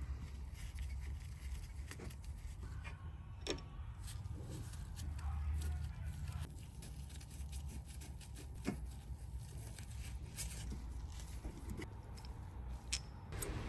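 Occasional sharp metallic clicks and knocks from a socket wrench and brake parts as the brake caliper bolts are undone, over a low steady hum.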